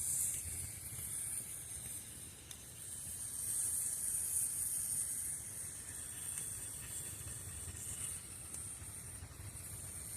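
Fire hissing steadily with a high hiss that sounds like snakes. It swells louder a few seconds in, with a few faint crackles.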